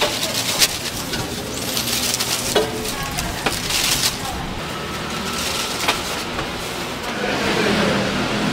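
Thin plastic bags rustling and crinkling as gloved hands slip wrapped spring rolls into them and pack them into paper bags, louder in a couple of short spells, over steady shop background noise.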